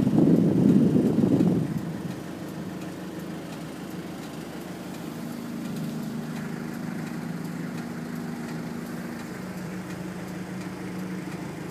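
Car engine idling, heard inside the cabin while stopped in traffic, as a steady low hum. A louder rumble fills the first second or two before it settles.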